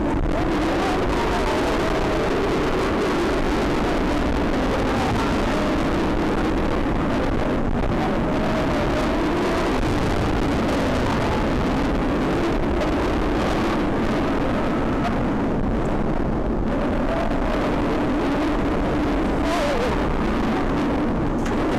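Bolliger & Mabillard inverted roller coaster train running through its layout, heard from on board: a steady roar of wheels on the steel track and wind on the microphone, with a faint wavering whine.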